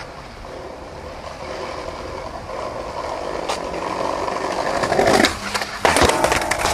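Skateboard wheels rolling on concrete, growing steadily louder, then two loud sudden crashes about five and six seconds in as the skater comes down a stair set and falls.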